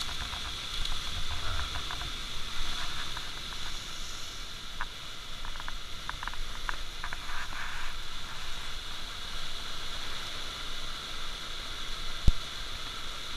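Steady high outdoor hiss, with a scatter of small clicks and taps from fingers working a hook out of a small fish's mouth, and one sharp knock about twelve seconds in.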